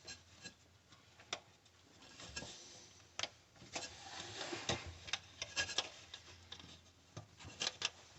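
Plastic sink drain fittings rubbing and scraping as a tight piece is worked onto the drain assembly by hand, with scattered clicks and knocks.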